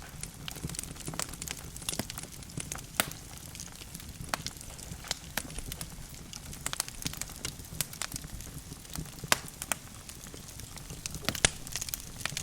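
Wood logs burning in a fireplace, crackling and popping irregularly over a low steady rumble of the flames.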